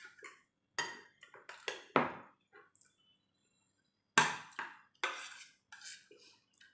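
Metal spoon scraping and clinking against a ceramic plate during a meal: a string of short clinks and scrapes, loudest about two seconds in and again just after four seconds.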